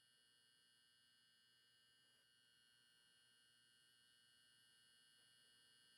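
Near silence, with only a faint set of steady high electrical tones.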